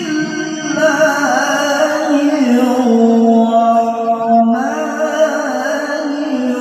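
A male qari reciting the Quran in melodic tilawah style, drawing out long, ornamented held notes. The pitch steps down about halfway through, and a fresh phrase begins soon after.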